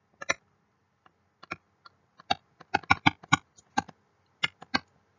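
Irregular light clicks and taps of a stylus on a tablet or drawing pad as words are handwritten, coming in quick clusters through the middle and again near the end.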